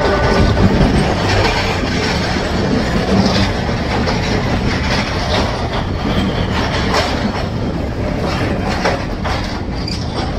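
Metre-gauge passenger train running along, its wheels clattering on the rails in a steady rumble with scattered clicks and knocks from the rail joints, heard from an open coach window.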